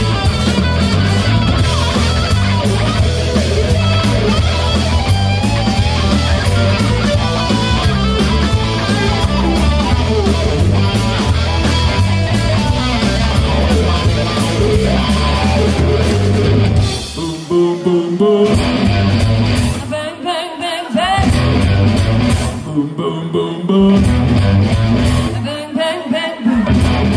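Live rock band playing loudly: electric guitars through amplifiers with bass and a drum kit in a dense, driving passage. About two-thirds of the way through, the band switches to stop-start hits with short breaks between them.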